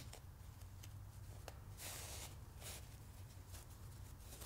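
Faint rustling of cotton fabric being handled, with small ticks and one brief louder rustle about two seconds in.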